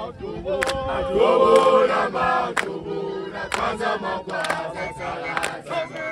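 A group of men singing a traditional Zulu song together, with loud handclaps about once a second.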